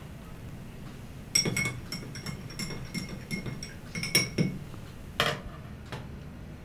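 Metal spoon stirring in a drinking glass, clinking against the glass again and again with a bright ringing tone for about three seconds, then one louder knock about a second later.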